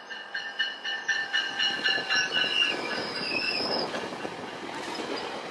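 A GO Transit bilevel commuter train runs past close by, cab car first. Its wheels give a high, steady squeal over a regular clickety-clack of wheels crossing rail joints. The squeal dies away near the end while the rumble of the passing coaches carries on.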